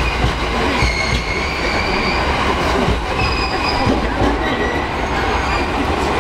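E231 series electric train cars rolling slowly past. Their wheels squeal at several high pitches that come and go over a steady low rumble.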